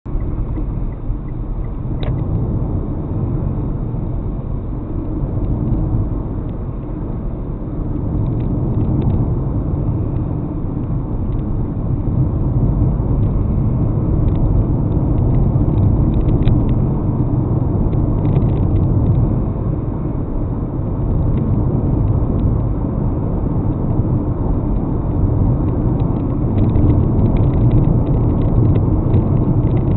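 Steady low rumble of a car driving, engine and tyre noise heard from inside the cabin, with a sharp click about two seconds in and a few faint ticks.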